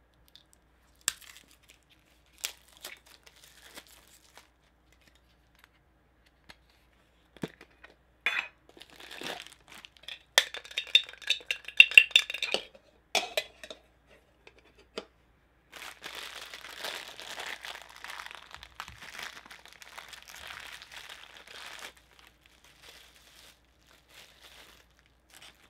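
Scattered clicks and clinks as a Funko Soda can and its metal lid are handled. Then loud crinkling of the clear plastic bag holding the vinyl figure as it is pulled out and opened, followed by a longer, steadier stretch of crinkling.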